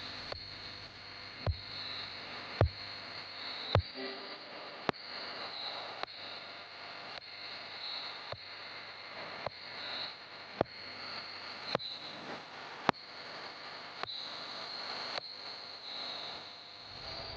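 Night insects trilling in a steady high chorus that swells and fades, over an even hiss like flowing river water, with a sharp click about once a second.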